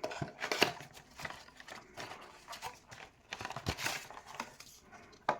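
Cardboard blind box and its plastic contents being opened and handled by hand: irregular taps, clicks and rustles.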